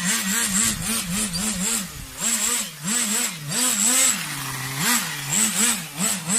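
Nitro RC car's small two-stroke glow engine being revved in quick blips, its pitch rising and falling about twice a second, dropping briefly to a steady idle about halfway through.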